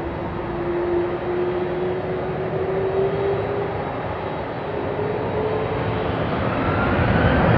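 Boeing 747-400D jet engines running with a steady whine whose pitch creeps upward; near the end a higher whine climbs and the noise grows louder as the engines spool up for take-off.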